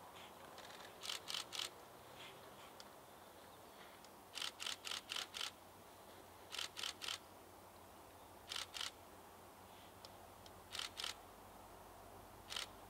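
Short runs of sharp clicks, one to five at a time and about four to five a second, repeating every couple of seconds over a faint steady background.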